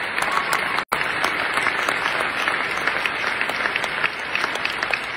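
Large audience applauding: dense, steady clapping from many hands. The sound drops out for an instant about a second in.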